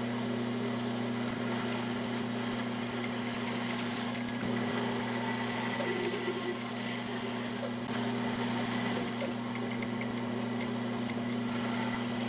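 Band saw running with a steady motor hum, its blade cutting through a hardened block of super glue and baking soda.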